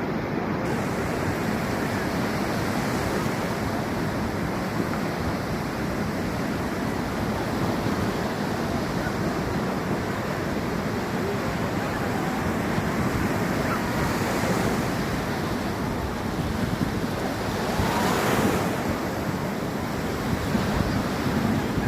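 Ocean surf: waves breaking and washing up the beach in a steady wash, with one wave breaking louder about 18 seconds in.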